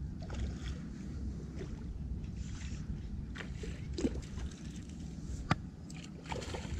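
Small water splashes and sloshing from a hooked bream being played in through shallow weedy water, over a steady low rumble of wind and handling noise. A few sharp clicks, the clearest about five and a half seconds in.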